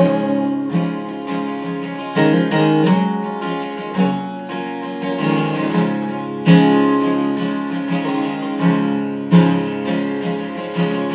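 Acoustic guitar strummed in a steady rhythm, its chords ringing between the strokes, in an instrumental passage with no singing.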